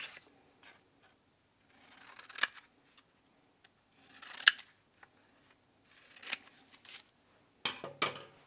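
Scissors cutting a paper index card: several separate cuts about two seconds apart, each a short rustle ending in a sharp snip. Two sharp clicks come close together near the end.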